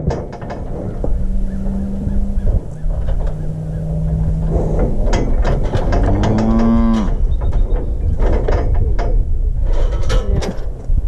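Cattle mooing: two long, low, steady moos in the first few seconds, then a louder moo that rises and falls in pitch about six seconds in. Short metallic clanks and knocks sound in between, from the steel cattle chute holding a calf.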